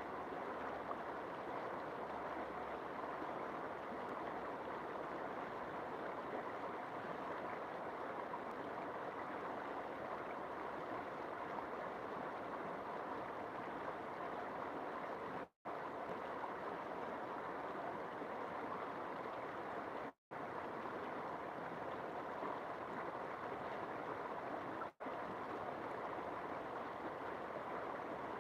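River water rushing and flowing steadily with an even, unchanging sound. It cuts out completely for a split second three times in the second half.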